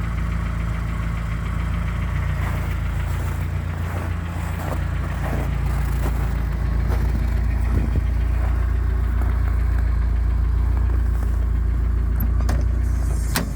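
Car engine idling cold, with the light tapping of a hydraulic valve lifter that has not yet pumped up with oil. A sharp click near the end.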